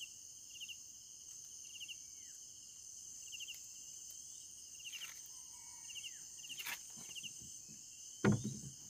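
Insects chirping in short pulsed trills about every second and a half over a steady high insect drone, with a few short falling whistles in between. A single sharp thump comes near the end.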